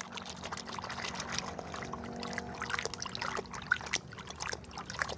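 Water pouring and trickling as toys are rinsed clean, with many small drips and clicks running through it.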